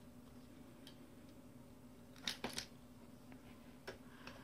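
Faint clicks of Lego plastic pieces being handled and pulled apart, with three quick ones about two seconds in.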